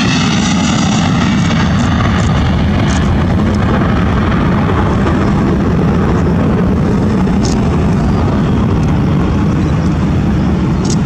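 Airbus A321 jet airliner at takeoff thrust, its twin engines giving a loud, steady roar as it lifts off and climbs away. A whine falling in pitch fades during the first second.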